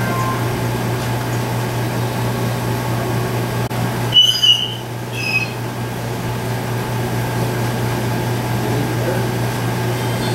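Outdoor sideline ambience at a football field: a steady low hum under faint background noise, broken a little after four seconds in by two short high-pitched sounds, the second a little lower than the first.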